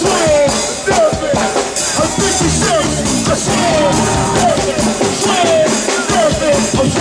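Go-go bounce beat music played live by a band: fast, dense drums and percussion with vocals, and short falling notes repeating through it.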